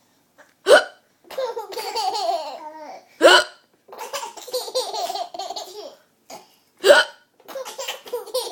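Three loud, sharp hiccups about three seconds apart, each followed by a burst of high-pitched laughter.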